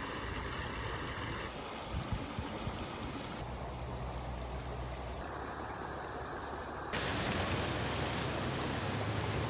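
Rushing water, a steady noisy wash like a flowing stream or floodwater, that changes abruptly in character four times and gets louder for the last couple of seconds.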